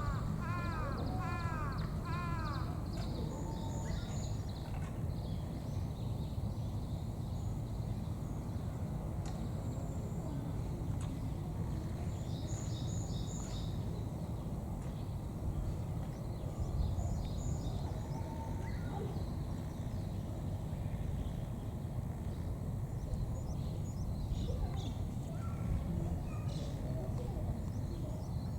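A crow cawing about five times in quick succession at the start. Small birds chirp on and off over a steady low outdoor rumble.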